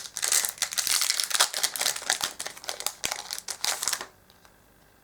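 Crinkling of a Yu-Gi-Oh booster pack's foil wrapper being torn open and handled, dense crackles for about four seconds, then it stops.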